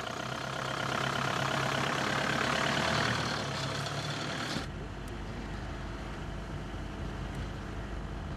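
Mahindra Bolero pickup's diesel engine running as it drives off, getting louder and rising for a couple of seconds. About four and a half seconds in it changes abruptly to a steady low rumble of a vehicle driving, heard from inside the cab.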